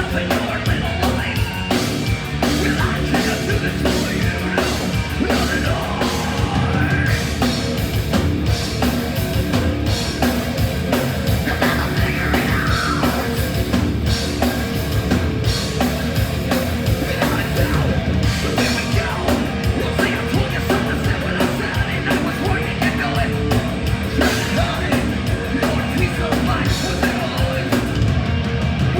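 Heavy metal band playing live and loud: fast drum kit, distorted electric guitars and yelled vocals.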